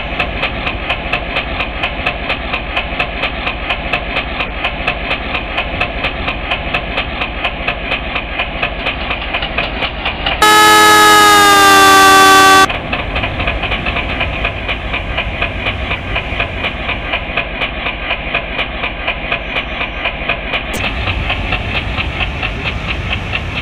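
Railroad crossing alarm ringing in a fast, steady repeating pattern. About halfway through, a train horn sounds one loud blast of about two seconds. Underneath runs the low rumble of a passing train.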